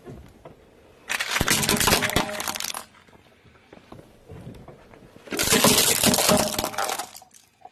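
A car tyre rolls over small plastic toy trucks and crushes them, giving a dense crackling crunch of breaking plastic about a second in that lasts under two seconds. About five seconds in, a plastic toy hammer is flattened under the tyre with a second crackling crunch of similar length.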